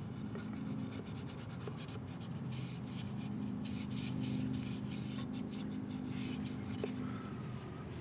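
Microfibre towel with metal polish being rubbed by hand into the corners of a chrome wheel centre cap around the lug nuts, worked in with a flathead screwdriver: a run of quick scratchy rubbing strokes in the middle of the clip. A steady low hum runs underneath.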